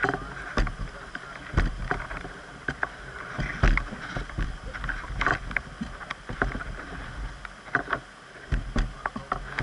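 A canoe moving on a running river: a steady rush of water around the hull, broken by irregular sharp knocks and splashes against the boat.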